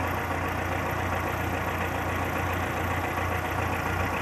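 Forklift engine idling steadily with a low, even hum while the truck holds its load raised on the mast.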